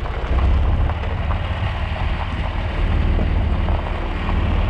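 Vehicle driving along a gravel road: steady low engine and road rumble with tyres crunching over gravel and small stones ticking, plus wind noise on the microphone.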